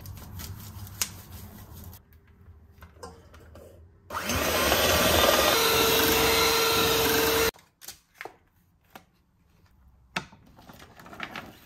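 Electric mixer starting up with a rising whine, then running steadily for about three seconds before cutting off suddenly, beating butter with powdered sugar for a cream cheese frosting. Faint clicks and knocks before and after.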